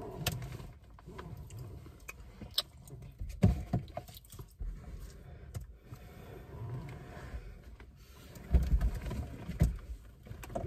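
Rustling, scraping and bumping of someone rummaging and reaching over the seats inside a car, with scattered clicks, a few knocks about three and a half seconds in and heavier low thumps near the end.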